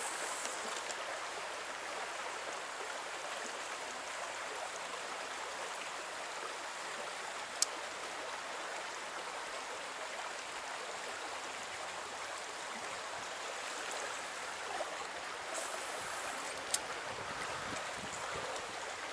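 Steady rush of a flowing stream running high with snowmelt, with two brief sharp clicks, one about a third of the way in and one near the end.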